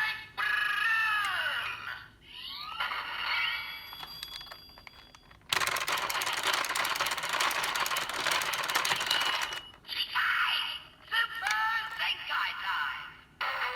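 DX Zenkai buckle toy belt playing electronic sound effects through its small speaker: processed announcer calls and a jingle, a sweeping effect, then a long noisy blast of about four seconds, followed by more announcer calls.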